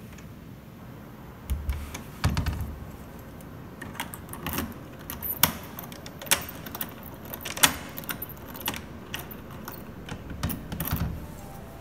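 Keys jangling and a key working a door's cylinder lock, with many sharp irregular clicks and a few dull knocks from the door and its lever handle, twice: near the start and again near the end.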